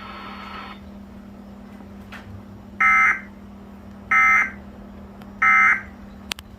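Emergency Alert System end-of-message data bursts: three short, identical warbling two-tone digital squawks about 1.3 s apart, signalling that the alert has ended. A steady low hum runs underneath, and there is a sharp click near the end.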